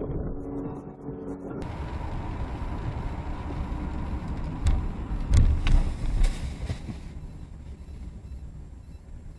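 Dashcam recording from inside a car on a wet road: steady road and engine noise, with a cluster of sharp knocks and heavy thumps about five to six seconds in, as a car collides with a tanker truck at the junction ahead. Before that, a different clip's steady engine hum cuts off after about a second and a half.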